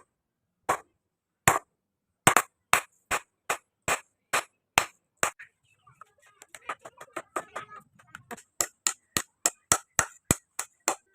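Hammer blows ringing on steel, forging a chainsaw bar into a blade. The sharp strikes come a little over one a second at first, then twice as fast, with a stretch of lighter, quicker taps in the middle, and then steady blows about three a second.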